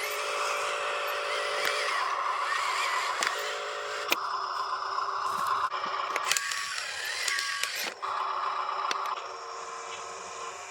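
Small electric motors and gears of RC construction models whining steadily, with scraping and a few sharp clicks; the whine drops away near the end.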